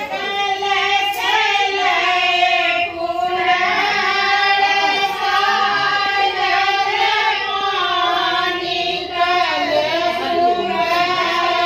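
High voices singing a slow melody with long, wavering held notes.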